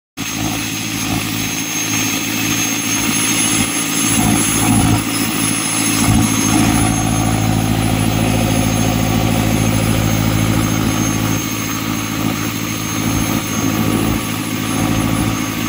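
Isuzu Trooper's 4JX1 four-cylinder turbodiesel idling steadily with an unusual knocking sound, which the mechanic suspects is fuel knock or wear of internal parts.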